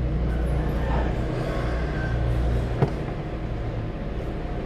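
Steady low mechanical hum of a running engine or motor, with a single sharp click about three seconds in.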